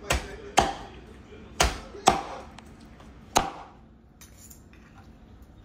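A meat cleaver chopping through grilled jerk chicken pieces on a cutting board: five sharp chops spread unevenly over the first three and a half seconds.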